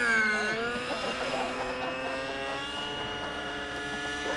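Two radio-controlled model helicopters, among them a T-Rex 600N nitro, flying overhead: the engines and rotors make a steady whine of several tones. The pitch dips about half a second in, then settles.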